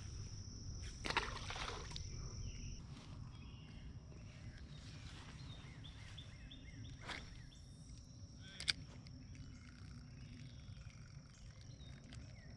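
Outdoor ambience: a steady high-pitched insect trill, birds calling in short repeated chirps from a few seconds in, and a low steady rumble beneath. A few sharp clicks stand out, the loudest about two-thirds of the way through.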